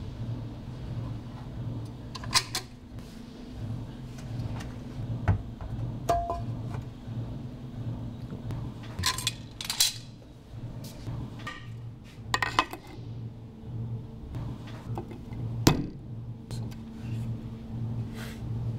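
Stone slabs and hand tools clinking and knocking as natural stone paving is set down on mortar pads and worked into place, a handful of sharp clinks a few seconds apart, some in quick clusters, over a steady low hum.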